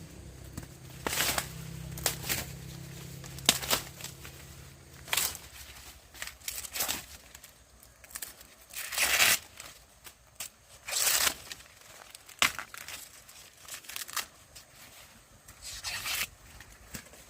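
Dry corn leaves and husks rustling and tearing in short, irregular bursts as ears of corn are picked from the stalks.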